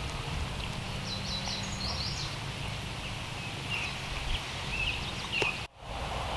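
Small birds chirping in short, quick high calls over a steady low rumble of wind on the microphone. The sound drops out for a moment near the end.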